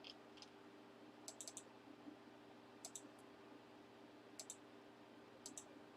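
Faint computer mouse clicks, mostly double clicks, about every second or so, over a faint steady hum.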